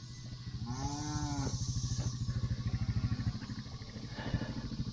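A small engine running steadily, picking up a little about half a second in, while a cow gives one moo, rising then falling, about a second in.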